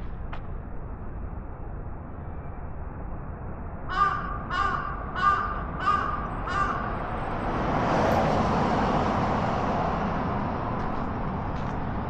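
A bird calling five times in quick succession, short calls about two-thirds of a second apart, then a broad rush of noise that swells up and stays the loudest thing to the end.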